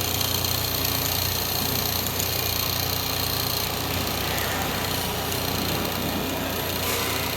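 Multi-needle curtain sewing machine running at a steady speed, giving an even motor hum with a low drone.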